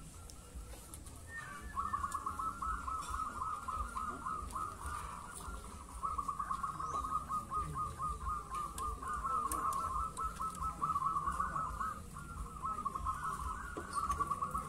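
Many caged zebra doves (perkutut) cooing together: a near-continuous chorus of rapid staccato coos that starts about two seconds in and dips briefly twice.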